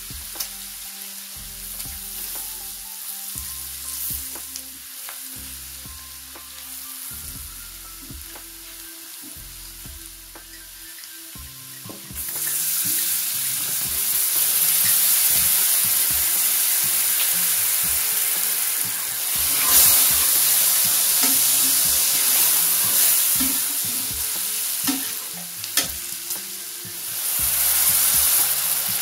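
Diced bacon and onion frying in oil, stirred with a spatula as flour is worked in. About twelve seconds in, vinegar goes into the hot pan and the sizzling jumps much louder and stays loud, with another surge near the end.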